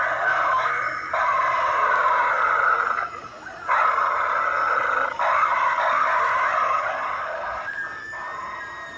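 Three-headed dog Halloween animatronic growling through its speaker, in long stretches broken by short pauses, fading out near the end.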